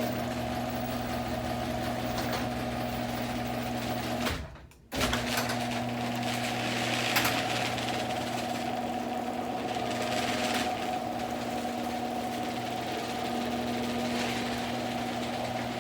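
A small electric motor running steadily with a constant hum. It cuts out for about half a second roughly four and a half seconds in, then carries on.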